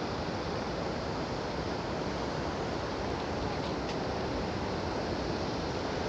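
A wide, low waterfall and a river in high flow, rushing steadily over rock ledges and a flat rock shelf: an even, unbroken water noise.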